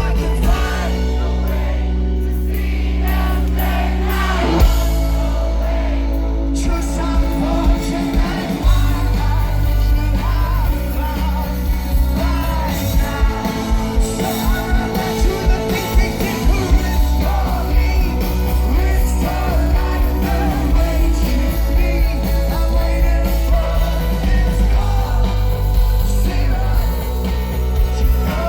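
Live rock band with a lead singer. Held bass and keyboard chords come first, with the voice coming in about four seconds in. A steady drum beat joins about eight seconds in and carries on under the singing.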